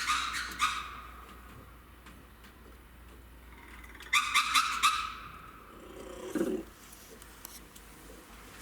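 Red ruffed lemurs giving harsh, pulsing calls in two loud bouts, a short one at the start and another of about four rapid pulses about four seconds in.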